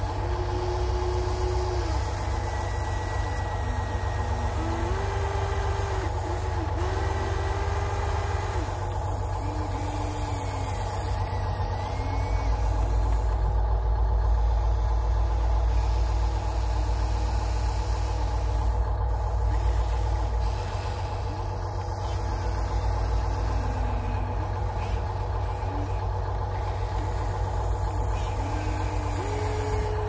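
Electric motors of Huina RC excavators whining in short bursts that rise, hold and fall in pitch as the boom, arm and bucket move while digging sand, over a steady low hum that swells for several seconds midway.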